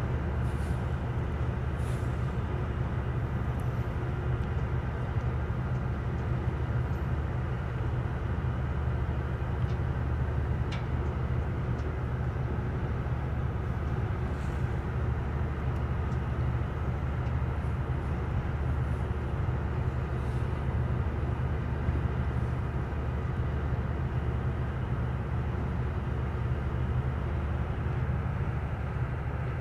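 Steady low diesel engine rumble, unchanging throughout, heard from inside a truck cab on a ferry under way.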